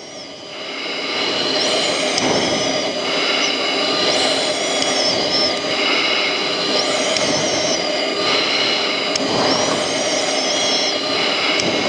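Jet aircraft engine and airflow noise, heard from aboard an aircraft in flight, running steadily. A high whine wavers up and down briefly every two to three seconds.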